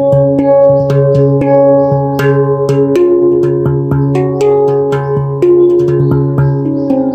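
Handpan being played: notes struck several times a second, each ringing on with overlapping bell-like tones in a slow, meditative melody.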